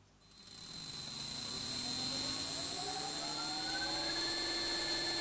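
Bridgeport milling machine motor switched on and running up to speed to drive the slotting head. A hum rises in pitch over the first few seconds and then holds steady, with a steady high-pitched whine over it.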